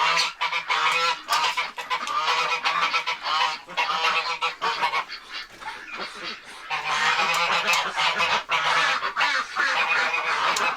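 A flock of geese honking loudly, many calls overlapping, easing off briefly about halfway through and then picking up again.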